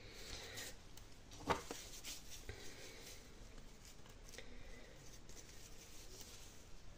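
Faint rustling and handling sounds, with a single sharper click about one and a half seconds in, as a piece of ginger rhizome is cut off by hand.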